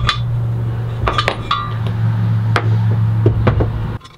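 Irregular metal clinks and taps of a wrench and steel parts on a belt grinder's tensioning arm held in a bench vise, some with a short ringing note. A steady low hum runs underneath and cuts off suddenly about four seconds in.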